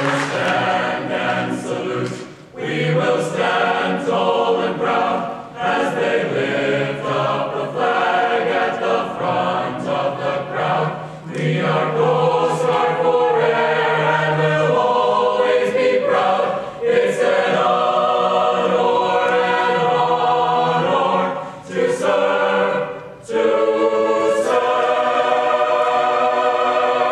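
Mixed choir of men's and women's voices singing, with short breaks between phrases about two and a half seconds in and again near the end.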